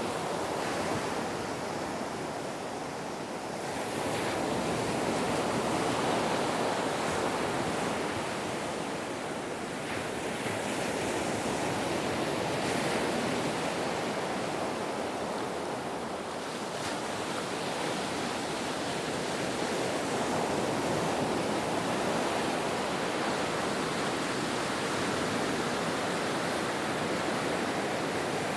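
Ocean waves washing ashore, a steady surf that swells and eases slowly every several seconds.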